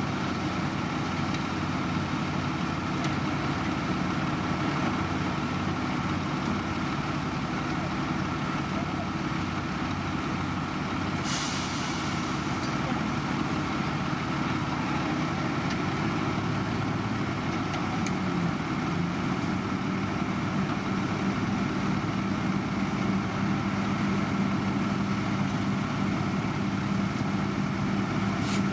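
A heavy road-construction machine's engine running steadily, with a short burst of hissing air about eleven seconds in.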